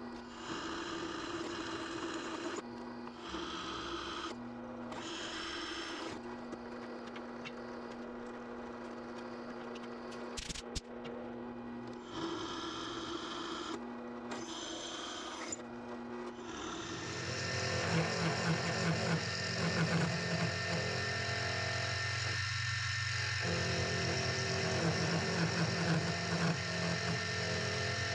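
Drill press running as a bit cuts through a steel disc on a plywood jig, broken by several short breaks. About 17 seconds in, a louder benchtop mini mill takes over, its end mill cutting the steel to join the drilled holes into a curved pivot slot.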